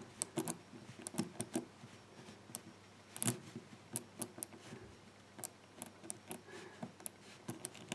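Faint, irregular clicking of the number wheels of an old Burg combination padlock being turned, each wheel clicking from position to position as they are brought into their gates.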